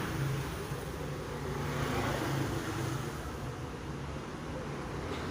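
Steady low mechanical hum of a running motor vehicle, with a noisy wash over it.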